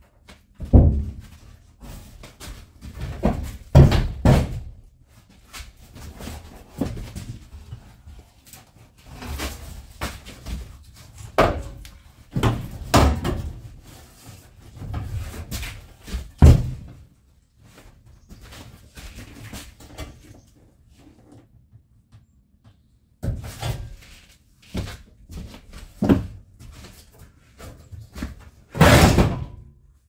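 Irregular knocks, thumps and bangs as the foam-insulated partition panel of a VW Crafter's refrigerated cargo box is knocked loose and worked out by hand inside the bare metal van body, with a longer, louder noise near the end as the panel tips over.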